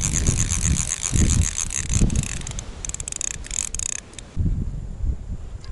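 Hand ice auger rasping through the thin refrozen ice of an old fishing hole, a continuous scraping that cuts off about four seconds in.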